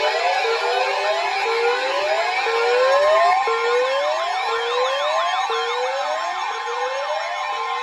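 Several electronic sirens sounding together, one rising in pitch over and over about once a second, with steady tones and faster up-and-down sweeps layered above it. A quick wavering yelp joins in high up for a couple of seconds midway.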